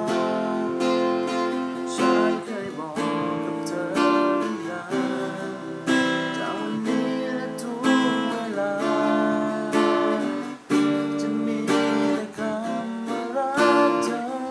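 Acoustic guitar strummed in a steady rhythm, chords sounding about once a second.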